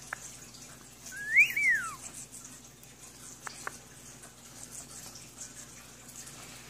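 A short whistle about a second in that rises and then falls, with a few faint clicks before and after it.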